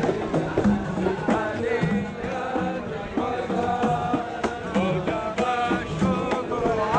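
Devotional chanting sung over regular drum beats.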